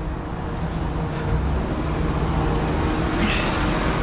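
Heavy diesel engine idling steadily, a low even running hum.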